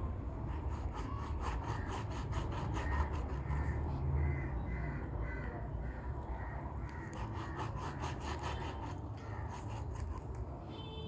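A knife sawing through raw meat against a wooden block in quick repeated strokes, with a pause in the middle.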